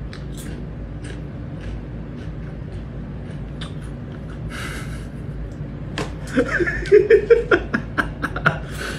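Kitten scrabbling in a tray of pellet cat litter, the pellets clicking over a steady low hum. From about six seconds in the clicking turns louder and quicker, mixed with short high voice-like squeals.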